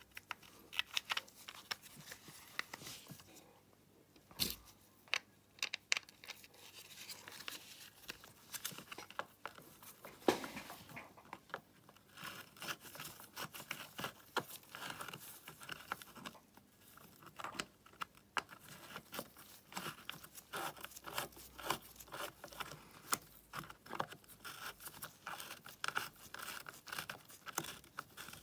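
Plastic air filter housing being fitted onto a pocket bike's carburettor and screwed down with a small socket driver: scattered light clicks, scrapes and rattles of plastic and metal.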